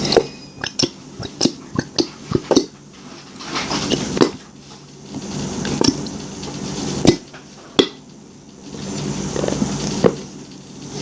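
Hard objects being handled and set down, a string of sharp, uneven clacks and knocks like containers and utensils on a table, with soft rustling between them.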